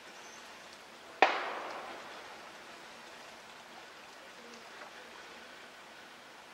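A single gunshot about a second in, its report echoing away over about a second, typical of target shooting. Under it, a faint steady outdoor hiss.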